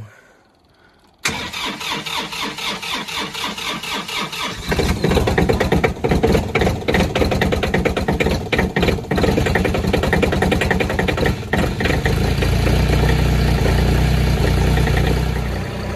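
John Deere 3025D compact tractor's three-cylinder diesel cold-started at about 16°F: the starter cranks it for about three and a half seconds, then the engine catches and runs on. A deeper drone comes into its running note about twelve seconds in.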